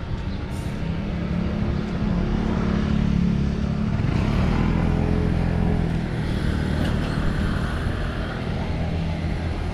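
Street traffic close by: a pickup truck and small motorcycles with their engines running at low speed. The engine noise grows louder about a second in and eases slightly near the end.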